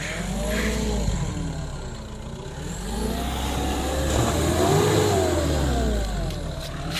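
Mitsubishi Pajero Sport's engine revving up and down in two long surges, working against the load of a 4x4 stuck cross-axled with one wheel hanging and no centre differential lock.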